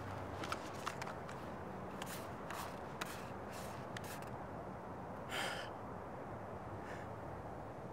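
Light clicks and taps of a worn plastic portable cassette player being handled and turned over in the hands, then a man's short breath about five and a half seconds in and a fainter one near seven seconds, over a low steady background hush.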